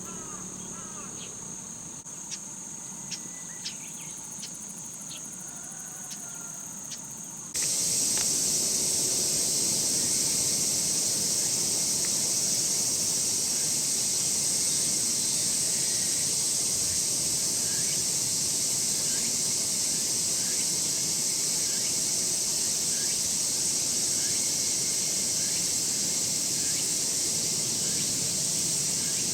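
Insects calling in a steady, high-pitched chorus; about eight seconds in it changes suddenly to a louder, fuller buzz that carries on unbroken.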